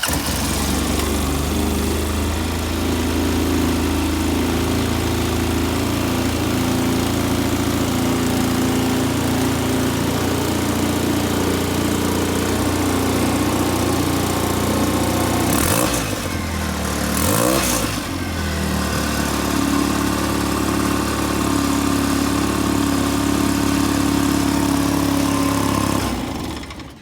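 Polaris Ranger XP 700's twin-cylinder EFI engine running at a high idle. Its speed briefly wavers about sixteen seconds in, and it shuts off near the end. The high idle goes with a code 51, low voltage to the throttle position sensor.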